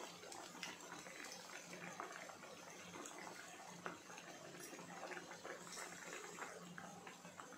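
Cutlets deep-frying in hot oil: a steady sizzle full of small crackles and pops.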